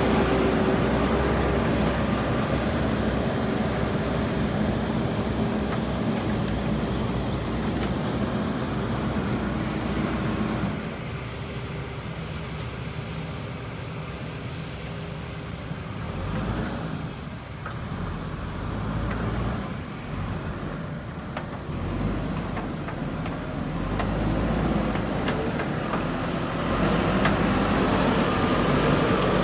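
JCB backhoe loader's diesel engine running under working load with a steady hum. It eases off about a third of the way in, then climbs back up near the end.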